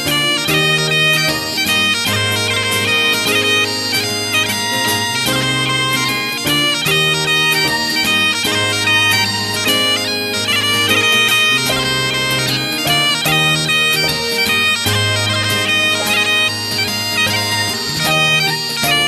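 Background music: a Scottish bagpipe tune, a continuous melody of quickly changing notes over sustained lower tones.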